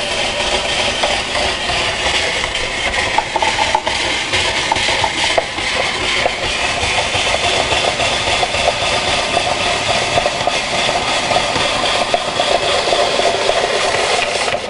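A hand-cranked spiral vegetable slicer being turned steadily as it cuts a cucumber into a spiral, leaving the seedy core.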